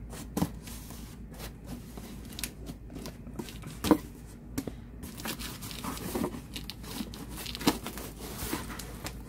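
A cardboard box being opened: packing tape cut and pulled away, the cardboard flaps rustling and scraping, with irregular sharp knocks, the loudest about four seconds in.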